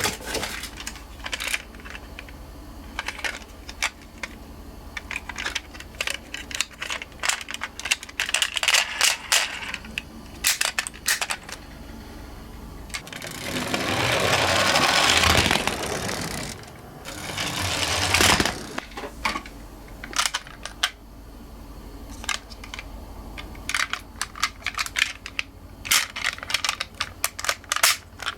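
Die-cast toy minicars clicking and clinking against each other and the ramp as they are handled. About halfway through comes a longer rolling rush, with a shorter one a couple of seconds later, as cars run down the slope.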